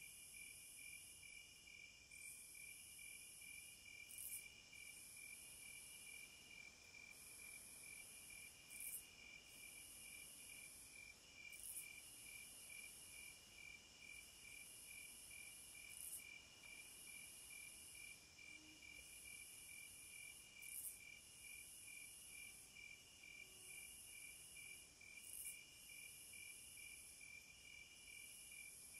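Faint night insect chorus: crickets chirping in a steady rapid trill, with a higher, hissier insect sound that breaks off briefly every few seconds.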